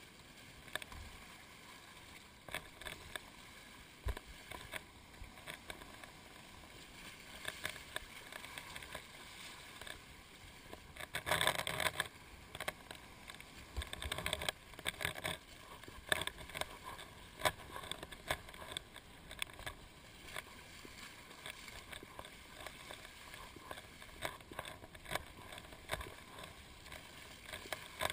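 Choppy seawater lapping and splashing right at the microphone, a patter of small irregular splashes, with a louder stretch of splashing about eleven seconds in.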